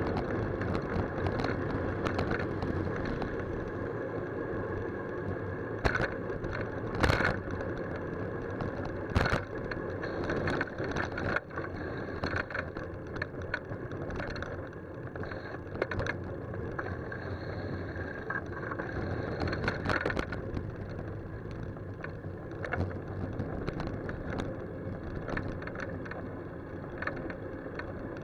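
Bicycle riding on a city road, heard from a handlebar-mounted camera: steady road and wind noise with sharp knocks and rattles, a few loud ones in the first ten seconds.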